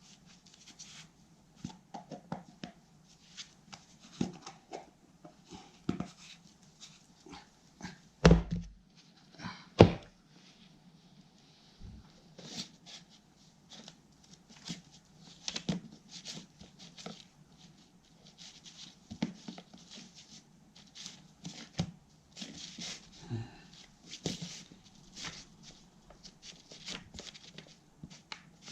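Two-part epoxy resin and hardener being mixed with a spatula on a hard flat board: repeated short scrapes and taps, with two louder knocks about eight and ten seconds in.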